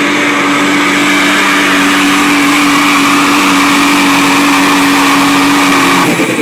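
Cummins diesel engine of a Dodge pickup held at full throttle while pulling a weight sled: a loud, steady drone at constant high revs. It cuts off suddenly about six seconds in as the throttle comes off.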